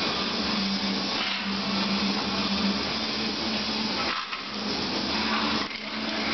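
Electric angle grinder running steadily with a constant motor hum, cutting into the rusty steel of a truck's front end. The noise dips briefly about four seconds in and again near five and a half seconds.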